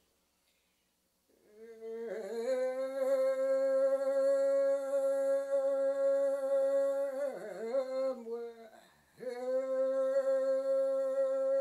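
A solo unaccompanied voice singing a Yami (Tao) fishing song in slow, chant-like style. It enters after about a second of silence, holds long, steady notes, wavers around seven seconds in, and breaks off briefly near nine seconds before taking up the next held note.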